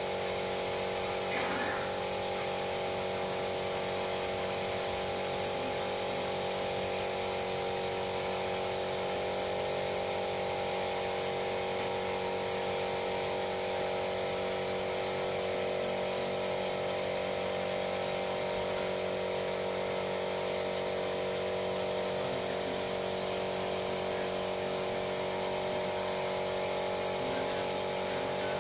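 A small electric motor running steadily with an even, unchanging whine.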